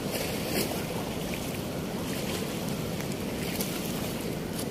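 Steady rushing of river water with wind noise on the microphone, with a few faint soft ticks.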